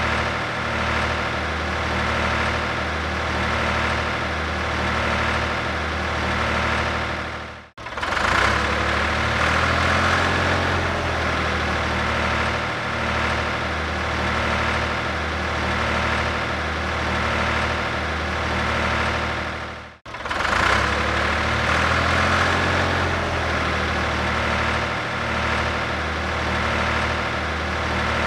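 Tractor engine idling steadily with an even low throb. The sound fades out and back in twice, about 8 and 20 seconds in.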